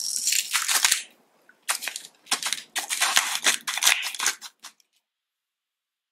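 Pepper mill grinding black pepper in rapid crunching strokes: a short burst of grinding, a brief pause, then a longer stretch that stops a little before five seconds in.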